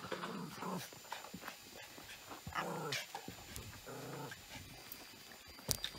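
A Kleinspitz growling in several short bouts, a jealous, possessive warning. A sharp click near the end.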